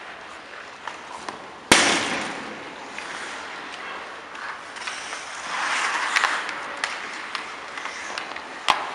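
Ice hockey play in an arena: a loud sharp crack of a puck strike about two seconds in, ringing out in the rink's echo, then skates scraping on the ice and another sharp click near the end.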